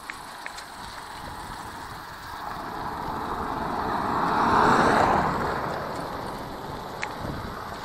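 A car driving past. Its noise swells to a peak about halfway through and then fades away.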